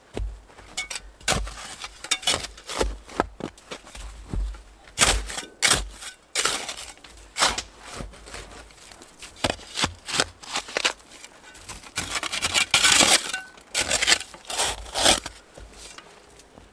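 Boots crunching and stamping through deep snow in an irregular run of crunches and dull thuds, with a longer stretch of heavy crunching about twelve seconds in.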